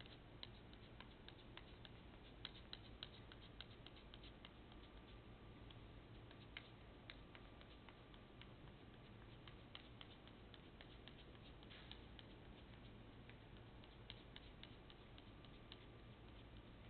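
Faint, irregular small clicks and ticks of a flexible putty knife working silicone sealant into a taped lane seam, over a low steady room hum.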